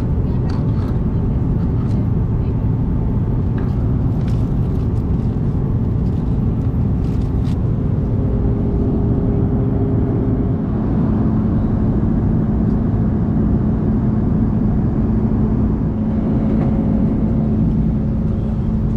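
Steady cabin noise of an Airbus A330-200 in cruise flight: the even rumble of the engines and rushing air, with a faint steady hum that shifts slightly about halfway through.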